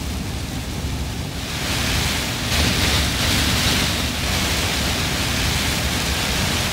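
Steady rushing noise of a truck on the move, heard from inside the cab, swelling about two seconds in.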